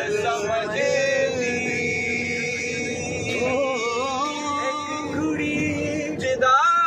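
A group of men singing together, with long held, wavering notes.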